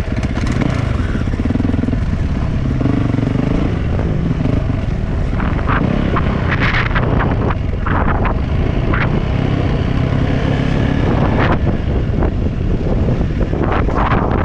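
Dirt bike engine running while riding, its revs rising and falling as the throttle changes, with several short bursts of noise on top.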